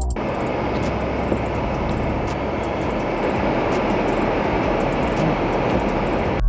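Steady rushing noise of a car driving at speed: road and wind noise with no clear engine note.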